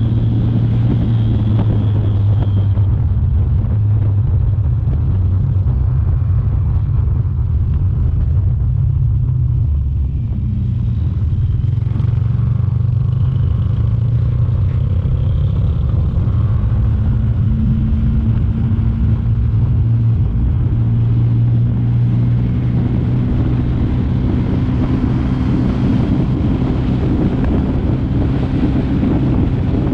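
Aprilia Tuono V4 motorcycle's V4 engine running at steady cruising revs with a low rumble of wind and road noise. The engine eases off briefly about a third of the way in and picks up to a slightly higher note past halfway.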